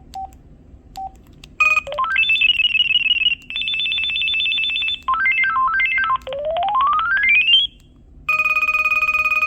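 LG VX4650 cell phone playing its preloaded ringtones, a series of different electronic beep tones. After two short beeps there is a fast warbling trill, a run of melodic beeps, a rising sweep of tones, a brief pause, then a steady rapidly pulsing ring.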